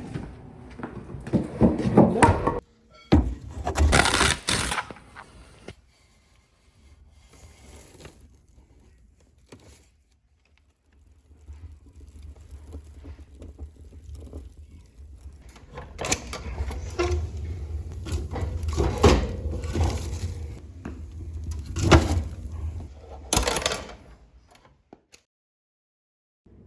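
Firewood being handled: logs knocking and scraping against each other. The handling comes in a few separate spells, with sharp knocks near the end.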